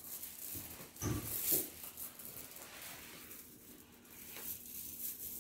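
A short animal cry about a second in, the loudest sound here, with quieter scuffling after it.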